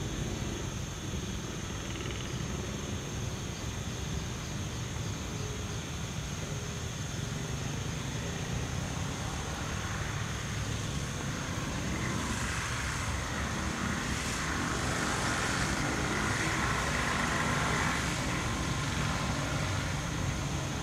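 Diesel locomotives, an EMD GR12W leading with an ALCo RSD16, approaching slowly with a grain hopper train: a steady low engine rumble that grows gradually louder, with a hissing noise building from about ten seconds in.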